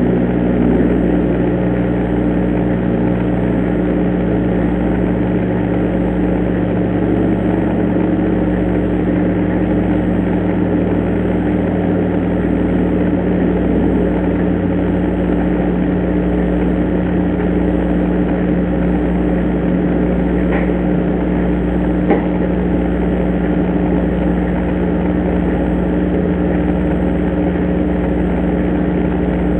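Steady hum and hiss picked up by an indoor IP security camera's low-quality microphone, with two short faint taps about twenty seconds in, a second and a half apart.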